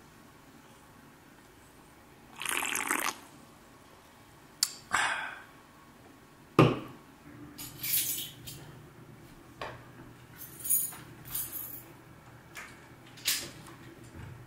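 Carbonated drink in a freshly opened aluminium can: two short bursts of fizzing liquid, then a sharp knock, followed by a scatter of light scuffs and clicks.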